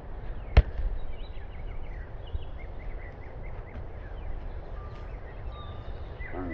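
Birds chirping over steady low outdoor background noise, with one sharp smack about half a second in, typical of a volleyball struck on a player's forearms in a pass.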